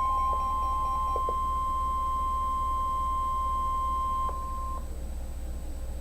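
NOAA Weather Radio warning alarm, a steady single high tone (the 1050 Hz alert tone) that cuts off about five seconds in, over a low electrical hum. A second, lower tone is also heard and stops about a second in.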